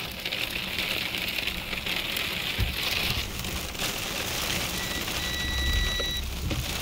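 Wind-driven rain and wet snow pelting the windshield and roof of a car, heard from inside the car as a steady hiss. About five seconds in, a thin, steady high whistle joins it for just over a second.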